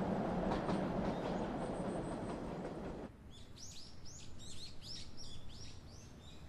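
Steady rushing noise that cuts off abruptly about three seconds in, followed by small birds chirping in quick, high, downward-sweeping calls.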